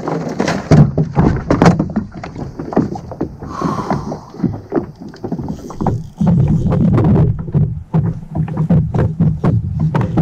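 Irregular knocks and water slaps against a plastic fishing kayak, with wind rumbling on the microphone, heavier from about six seconds in.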